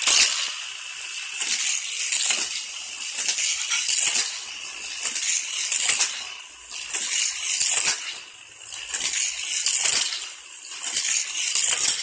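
Hot Wheels Colossal Crash track set running: die-cast toy cars clattering around the plastic track through its motorized boosters, the noise swelling about once a second as the cars come round.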